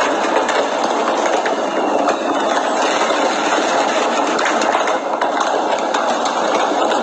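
Many firecrackers going off at once in a dense, unbroken crackle of rapid small bangs.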